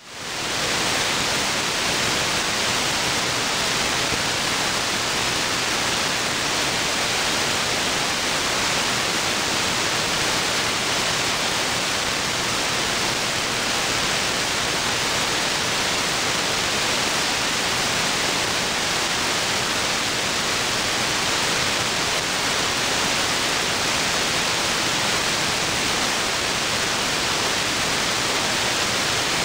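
Steady radio static: the loud, even hiss of an AM aircraft-band receiver with no signal on the channel, heard as open-squelch dead air between air traffic control transmissions. The hiss swells up just as it begins, right after a transmission ends.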